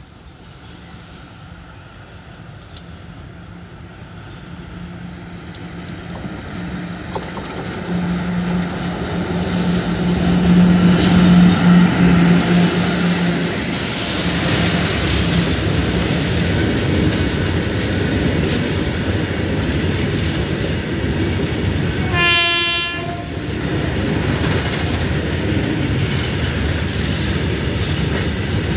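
A WAG-7 electric freight locomotive approaches and passes at the head of a goods train. Its steady hum grows louder to a peak about eleven seconds in, then the open box wagons keep rolling past with a steady rail rumble. A short horn note sounds about two-thirds of the way through.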